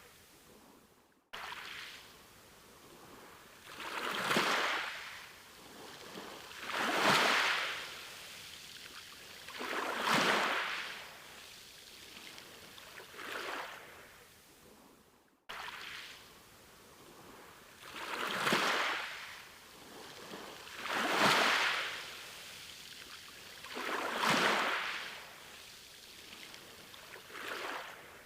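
Sea waves breaking and washing back in swells about every three seconds, each one building and falling away. The sound cuts out abruptly twice where a short recording loops.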